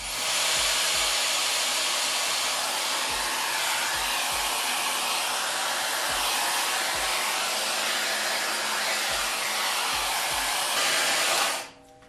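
TYMO Airhype hair dryer with its diffuser attachment running steadily, a strong even rush of blown air, switched off near the end.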